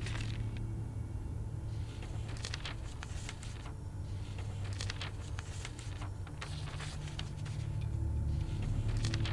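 Sheets of paper rustling and crackling as they are picked up and leafed through, in short irregular bursts, over a low steady hum.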